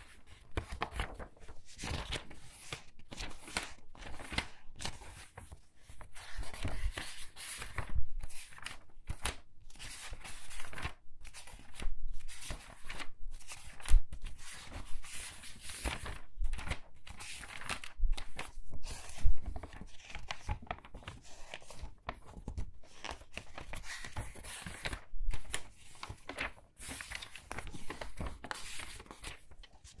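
Thin pages of a large hardcover book being turned quickly one after another: a rapid, irregular run of papery swishes and flutters, with occasional low thumps as pages land and hands press on the book.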